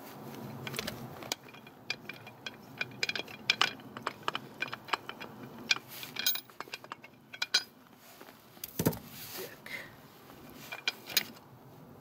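Scattered metal clicks and clinks from an Afghan kazan's cast-aluminium lid clamp being unscrewed and worked loose, the clamp and handle knocking against the pot, with a duller knock about nine seconds in.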